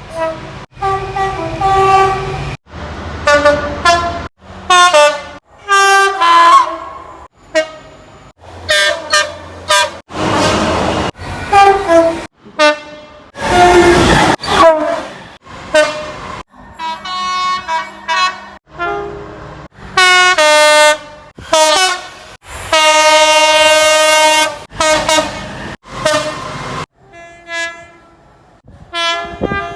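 Train horns sounding one after another in quick succession, a dozen or more short blasts and chords, each cut off abruptly as the next begins. The longest is a steady held chord of about two seconds, a little past two-thirds through.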